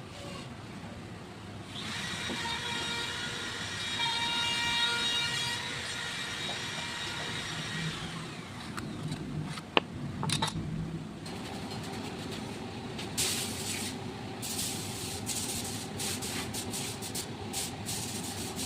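A small motor whining steadily for about six seconds, then a string of sharp clicks and knocks.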